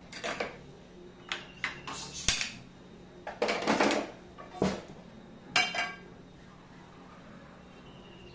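Clicks and knocks of a gas stove burner being lit, then a frying pan scraping and clattering as it is set down on the metal burner grate, some knocks ringing briefly. The sharp sounds come in a run over the first six seconds and then stop.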